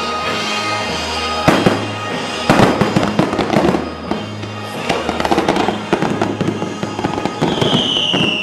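Fireworks display: aerial shells bursting with sharp bangs about one and a half, two and a half and five seconds in, and crackling between them, over music with steady low notes. Near the end a long falling whistle-like tone comes in.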